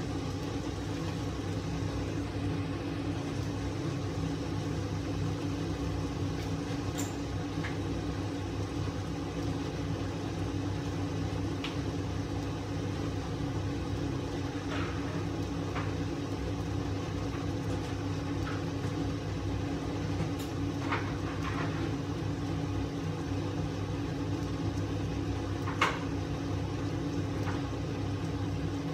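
Steady low hum of a kitchen appliance, with scattered small crackles and pops from eggplant and minced meat cooking in a lidded wok; one sharper pop comes near the end.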